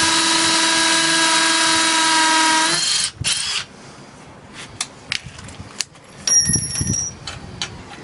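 Two Makita 18V cordless hammer driver-drills (BHP458 and BHP459) drilling into a concrete block together with a steady whine, stopping about three seconds in after a short extra burst. Then scattered clicks and a brief whir as the bits are handled in the keyless chucks.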